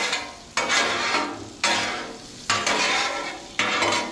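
Small boiled potatoes sizzling on a hot Blackstone flat-top griddle while a metal spatula scrapes under them and turns them. The sizzle flares up in four sudden bursts about a second apart, each fading away.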